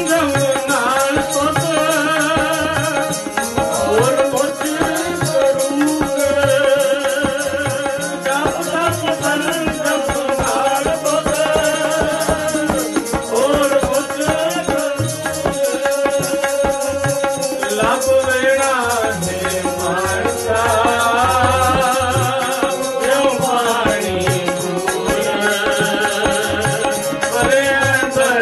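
Sikh kirtan: a man singing Gurbani in a wavering, ornamented line to harmonium and tabla, with a steady held note sounding under the voice and quick tabla strokes throughout.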